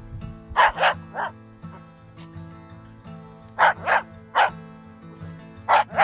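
Jack Russell terrier barking in quick clusters: three barks just after the start, three more around the middle, and two at the end, over steady background music.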